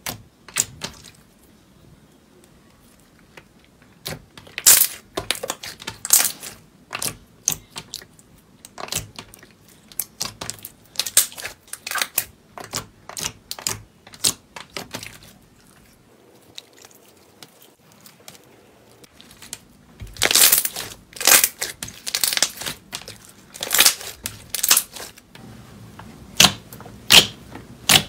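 Slime squished and pressed by hand: an irregular run of sticky pops, clicks and crackles in clusters, with a quiet stretch about halfway through. First a clear slime, later a thick white slime.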